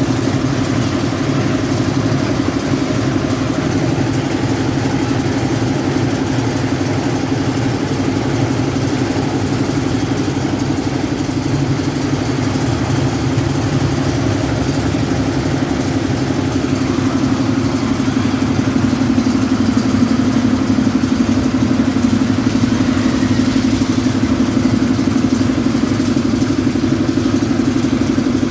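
Engine of a site concrete mixer running steadily, with some clatter, getting a little louder about two-thirds of the way through.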